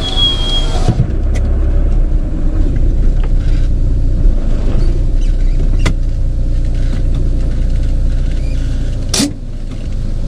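Camper van driving, a steady low engine and road rumble with a few sharp clicks, the loudest near the end.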